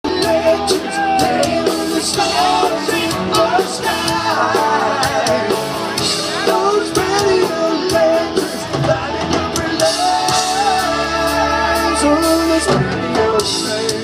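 A live rock band playing a song with a male lead singer, with guitars and drums amplified through a PA and heard from far back in the audience.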